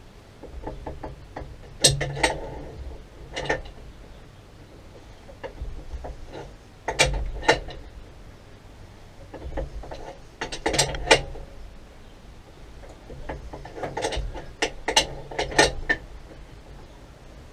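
Metal clicks and clinks from hand tools on a threaded pipe fitting of a bore pump, coming in short clusters of a few sharp clicks with pauses between.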